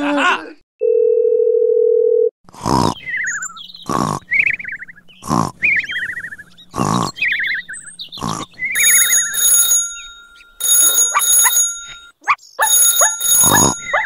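Cartoon snoring sound effect: a run of snores, each followed by a falling whistle. About nine seconds in, a phone ringtone starts ringing in repeated bursts while the snoring goes on. A steady beep for about a second and a half comes just before the snores begin.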